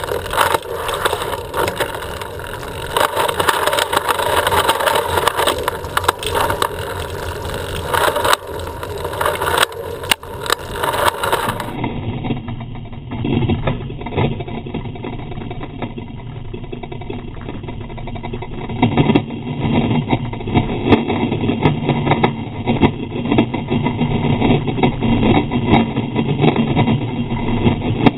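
Continuous road noise while riding a bicycle: a steady rush of moving air and tyres on pavement, with the sound of road traffic. About twelve seconds in the sound changes abruptly to a duller rumble.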